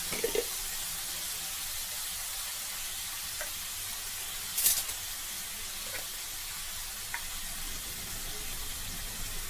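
Chicken pieces and onions sizzling steadily in an aluminium kadai on a gas stove, with a few light clicks and one short, louder burst of sizzle about halfway through.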